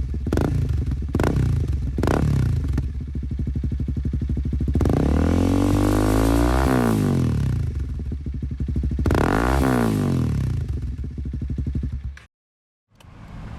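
Honda CL300 single-cylinder engine revving through a Yoshimura aftermarket exhaust: three quick throttle blips, then two longer revs that rise and fall back to idle. The sound cuts off abruptly near the end and comes back quieter.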